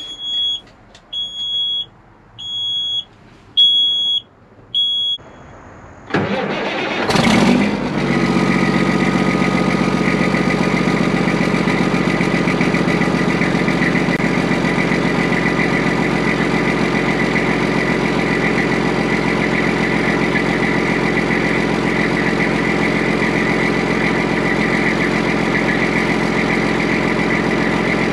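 Kenworth T800 semi truck being started: first a dash warning buzzer beeps in short high pulses with the ignition on, then the starter cranks for about a second and a half and the diesel engine catches and settles into a steady idle.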